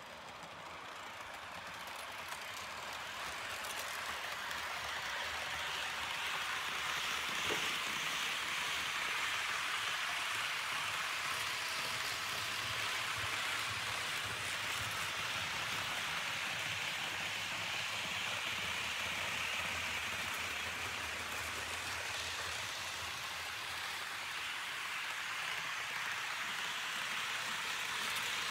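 H0 scale model train, a Piko CD Railjet hauled by a Rh 1216 Taurus electric locomotive, running along the track: a steady rushing noise of wheels rolling on the rails, growing louder over the first few seconds as the train nears and then holding steady.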